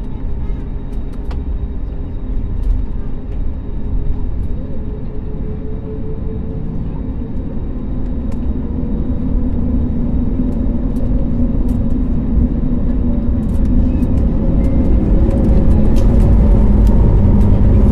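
Jet airliner's engines and rumble heard from inside the aircraft, growing gradually louder with a faint engine tone slowly rising in pitch, typical of the takeoff run. Small rattles and clicks come through over the rumble.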